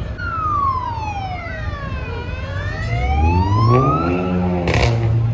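Fire truck siren wailing through one slow fall and rise in pitch. Over the last two seconds a heavy truck engine revs up with rising pitch, and a short sharp hiss comes near the end.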